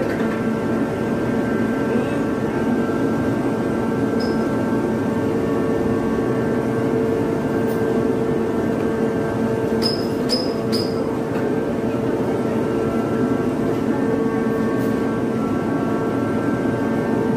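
Steady mechanical drone with a constant hum from a coal mine's man-riding chairlift, its haulage rope running over the pulleys. There is one short high squeak about four seconds in and three quick ones about ten seconds in.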